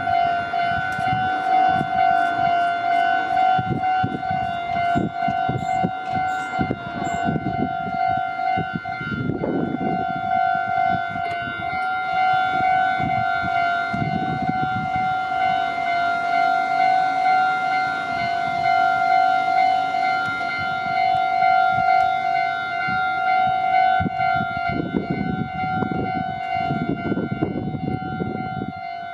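Japanese level-crossing warning bell sounding without pause, one steady pitched tone with overtones. Underneath, a train rumbles and its wheels clatter over the crossing at times, heaviest about nine seconds in and again near the end.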